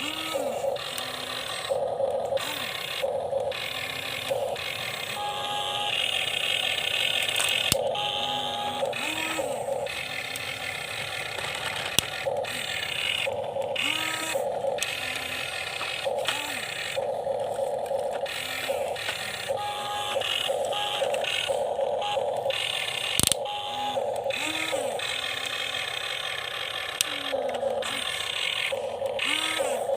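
Small electric motors and gearboxes of radio-controlled excavator and truck models whining in short start-stop bursts, each burst rising and then falling in pitch, with a few sharp clicks.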